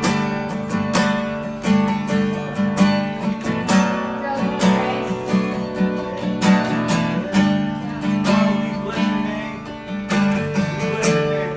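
Acoustic guitar strumming steady chords in a worship-music instrumental interlude, with no singing.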